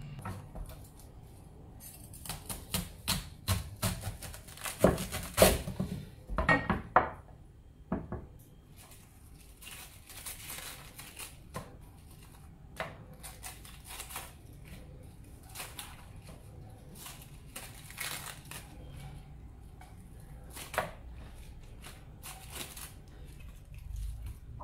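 A cleaver chopping through the base of a napa cabbage on a wooden cutting board, a quick run of sharp knocks over several seconds. After that the leaves are pulled apart, with scattered small snaps and rustles.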